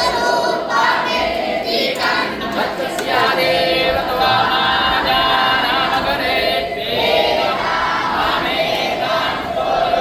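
A group of voices chanting together in unison, the sung lines rising and falling with a few short breaks between phrases.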